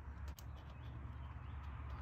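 Low steady outdoor rumble, with a couple of faint clicks about a third of a second in as the nozzle of a tube of dielectric grease works against a plastic ignition-coil connector.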